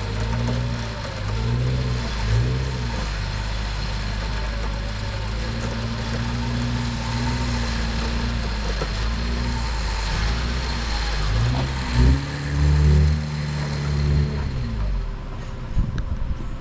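Off-road vehicle engine crawling up a rocky trail obstacle, revving up and down over and over under throttle. The strongest revs come about twelve seconds in, and the engine fades away near the end.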